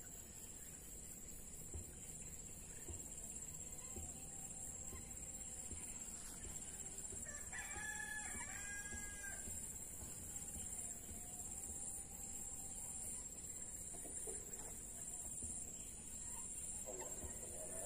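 A rooster crowing once, about eight seconds in, with fainter calls before and after, over a steady high-pitched whine.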